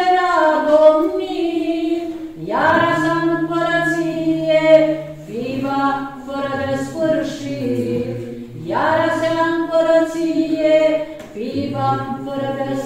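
Choir singing a Romanian Orthodox pricesne (devotional hymn) without instruments, in phrases of a few seconds each, with lower voices holding a steady note under the tune.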